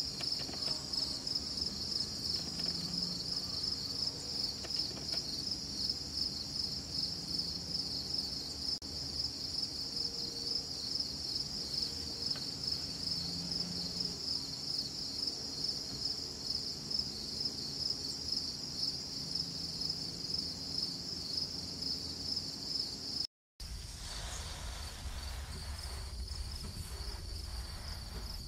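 Insect chorus: a steady, high-pitched, rapidly pulsing trill, cricket-like, that cuts out for a moment about 23 seconds in and then resumes.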